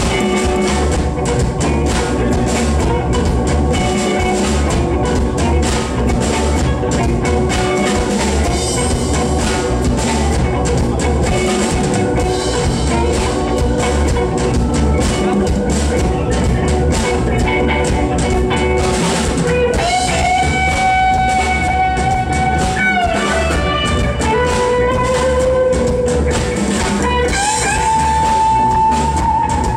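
Band music with drum kit and guitar, steady and loud; from about twenty seconds in, long held guitar notes ring out over the drums.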